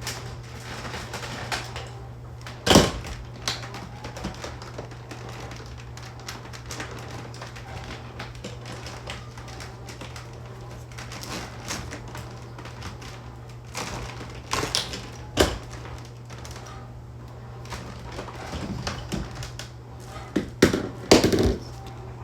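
Irregular small clicks and taps with a few louder knocks, about 3 s in, around 15 s, and a cluster near the end, over a low steady hum: household things being handled before the vacuum cleaner is switched on.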